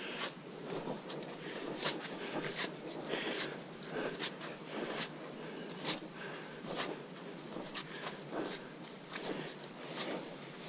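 Footsteps on a muddy dirt trail, a crunching step a little under every second at walking pace, over a steady background hiss.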